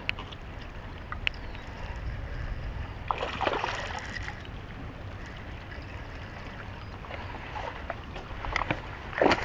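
Water lapping and sloshing against a floating dock, with wind rumbling on the microphone. Two short splashy surges stand out, one about three seconds in and a louder one near the end.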